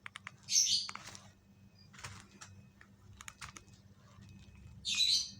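Keypad buttons of a Strawberry ST2 mobile phone being pressed: a run of short, irregular clicks, with two brief hissing sounds about half a second in and near the end.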